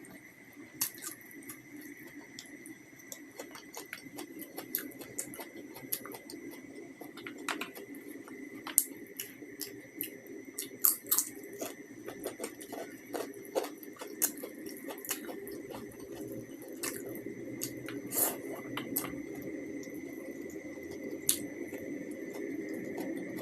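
Close-miked eating sounds: irregular mouth clicks and smacks of a person chewing and eating a meal of egg curry and rice. A steady high whine runs underneath.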